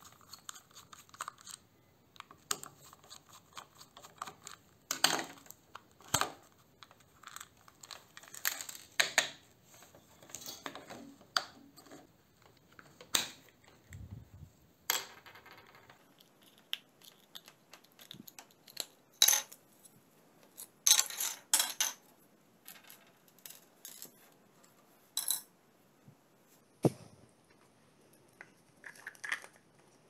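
Irregular small clicks, taps and scrapes of hard plastic parts and screws as a plastic inline cord switch housing is unscrewed with a screwdriver, opened and its pieces set down and fitted together.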